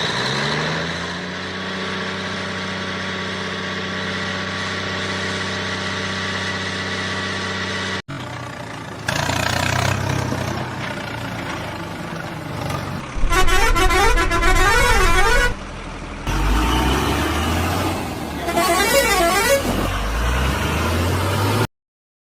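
A long, steady vehicle horn blast lasting about eight seconds, followed by rumbling vehicle noise with two warbling, siren-like stretches, cutting off abruptly near the end.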